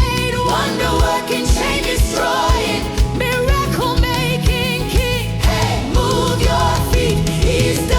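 African gospel praise music with singing over a steady drum beat, about two hits a second.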